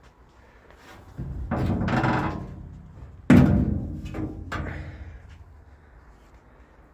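Sheet-steel car repair panel being handled: a rustling scrape, then a loud thunk about three seconds in that rings on and fades, and a smaller knock a second later.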